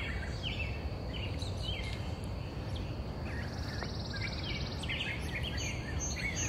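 Outdoor ambience: songbirds chirping in short calls throughout, over a steady low background noise. An insect trills for about a second and a half midway.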